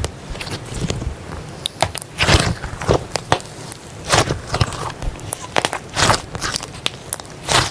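Slime being squeezed and poked by hand, giving irregular crackling, popping squelches, roughly one or two a second.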